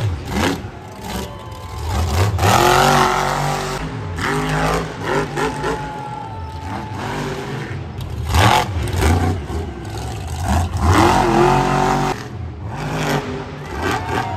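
Monster truck's supercharged V8 revving hard and falling back in repeated surges during a freestyle run, with the loudest bursts about two seconds in and again around ten seconds.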